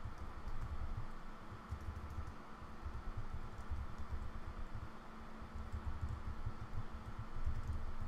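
Typing on a computer keyboard: an irregular run of dull keystrokes as a user name and password are entered, over a faint steady hum.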